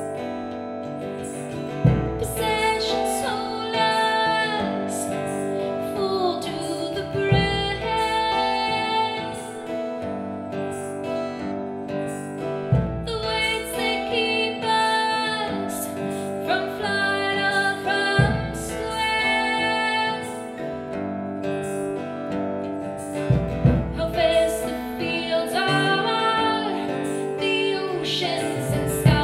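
Live acoustic song: two acoustic guitars and a woman singing lead, with a large drum struck by a soft felt mallet giving a deep thump about every five and a half seconds.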